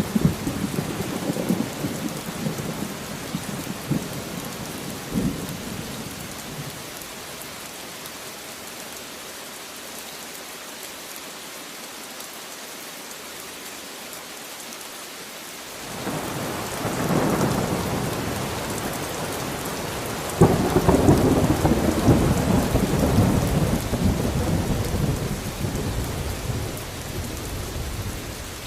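Steady rain falling, with rolls of thunder: a rumble dies away in the first few seconds, then rain alone for a while, then thunder builds past the middle and a louder peal breaks about two-thirds of the way through and slowly fades.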